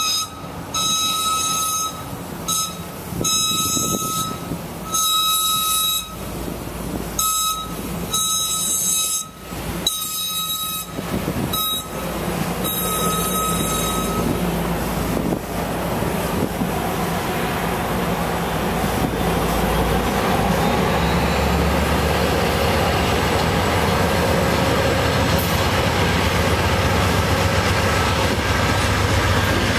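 A high-pitched warning tone sounds in repeated bursts of about a second for the first half. Then an Amtrak passenger train rolls past with a steady rumble and clatter of cars on the rails. Near the end the drone of its F59PH and P42DC diesel locomotives grows louder as they pass.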